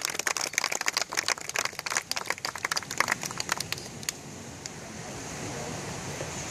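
A crowd of wedding guests applauding, with quick irregular hand claps. About four seconds in the clapping cuts off abruptly, leaving a steady rushing noise.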